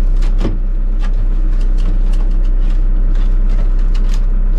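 Excavator's diesel engine idling steadily, with a series of plastic clicks and knocks from a storage compartment lid behind the cab seat being handled, opened and shut.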